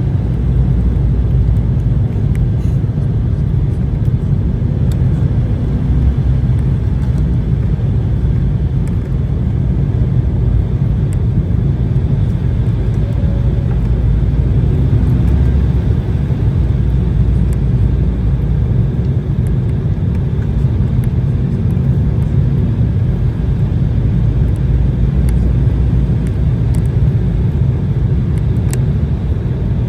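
Steady low rumble of an Embraer 190 airliner heard from inside the cabin: engine and airflow noise.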